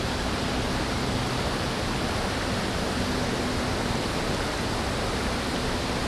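Shallow creek water rushing steadily over rocks.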